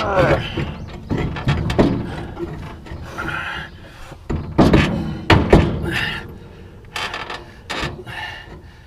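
Metal clunks, knocks and scraping as a New Holland 474 haybine's wobble box gearbox is shifted and worked into place by hand against the machine's frame, with two loud knocks about halfway through.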